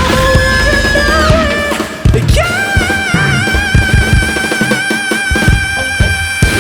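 Live rock band playing, with drums and electric guitar. From about two seconds in, a long high note is held, wavering slightly.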